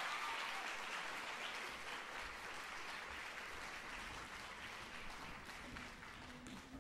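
Audience applause in a concert hall, the clapping gradually dying away.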